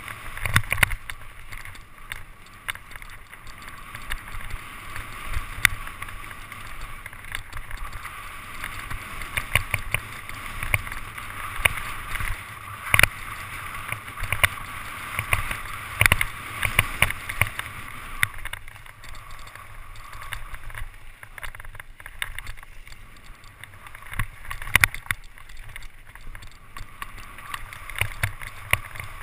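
Downhill mountain bike ridden fast over a rough forest trail: the bike clatters and knocks over roots, rocks and ruts, over the constant rush of tyres on loose dirt and wind rumble on the helmet-mounted camera.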